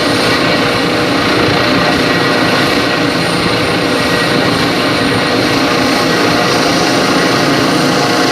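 Helicopter running close by, its turbine and rotor making a loud, steady noise that holds without change.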